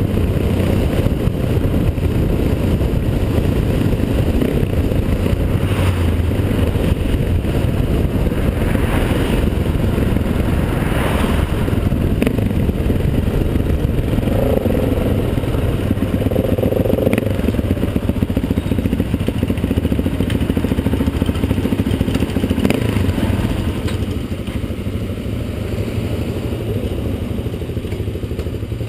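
Dirt bike's engine running while riding along a paved road, heard from a camera mounted on the bike. Near the end the sound eases off as the bike slows and stops.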